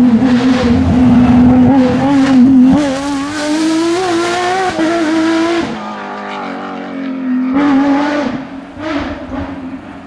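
Porsche 997 GT3 rally car's flat-six engine at full throttle, its pitch climbing with brief dips at the upshifts. It lifts off sharply about halfway through, pulls hard once more for a moment, then fades as the car drives away.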